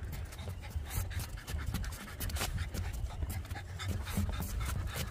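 Boston terrier panting as it walks, with irregular taps of paws and footsteps on wooden footbridge boards.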